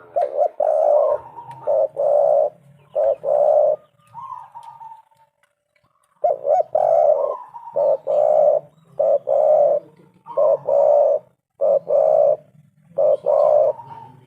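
Spotted dove cooing: repeated low, rolling coo notes in short phrases, with a pause of about a second midway before the phrases resume.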